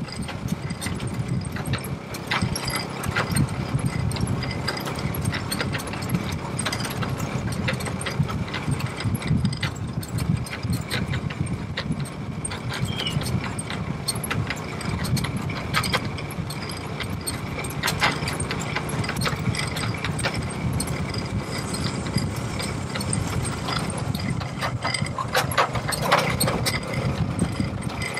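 A vehicle engine running steadily, with frequent rattles and knocks throughout.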